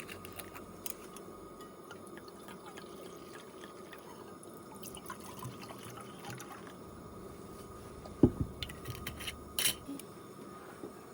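Liquid being poured, with a few light clicks and knocks; the sharpest come about eight and nine and a half seconds in.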